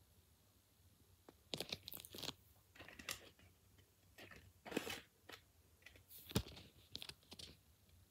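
A folded paper origami cube being handled and turned over on a carpet: irregular crunchy rustles of stiff paper, with a sharp tap about six seconds in as it is set down.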